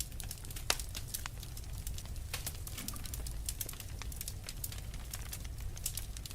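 Wood fire crackling in a fireplace: frequent irregular sharp pops and snaps, one louder pop about a second in, over a low steady rumble of the flames.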